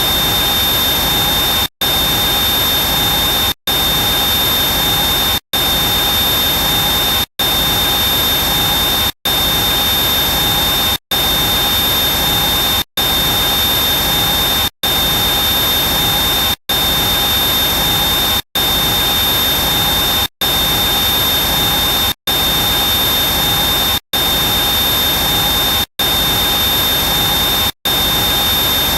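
Close-up helicopter turbine engine running steadily: a loud, even rush with a high whine on top. It is broken by very short silent gaps about every two seconds.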